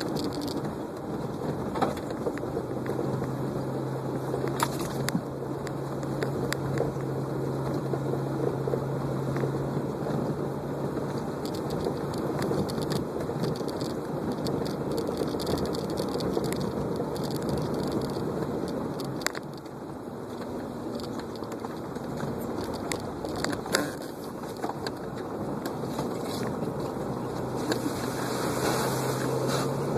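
Off-road vehicle driving along a sandy dirt trail, heard from inside the cab. A steady engine hum and tyre and road noise run throughout, with scattered knocks and rattles from the body over bumps.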